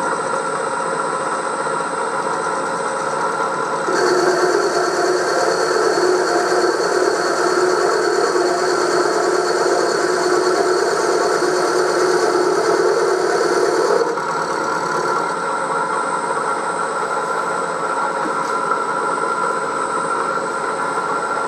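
Bridgeport vertical milling machine running, its end mill cutting a cast iron part, a steady machine hum and whine. From about four seconds in, a louder, higher whine joins in for about ten seconds, then drops away.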